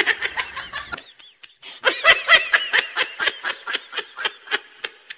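A person laughing hard in quick, high-pitched bursts of giggling, with a short break about a second in.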